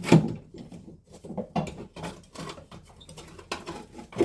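Irregular knocks, clunks and rattles as an old fuel filler neck is worked out of a car, with a sharp knock at the start and another near the end.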